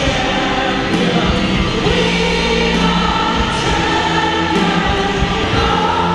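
Music with a choir singing long held chords over a steady low bass.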